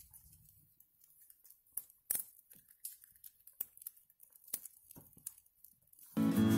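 Burning twigs crackling in a small wood-burning camp stove: sparse, sharp pops scattered irregularly. Acoustic guitar music comes in near the end.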